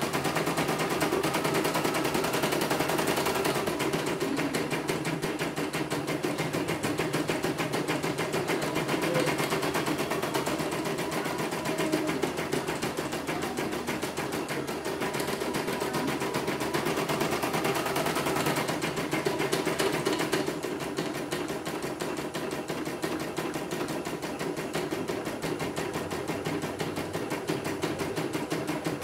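CNY portable home embroidery machine stitching a design: a fast, even clatter of the needle going up and down while the hoop carriage shifts the fabric. It eases slightly about two-thirds of the way in.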